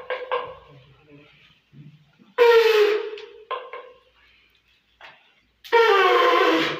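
Conch shell (shankha) blown twice during a puja offering: two loud, breathy blasts of about a second each, the pitch sliding downward at the end of each, the second one longer.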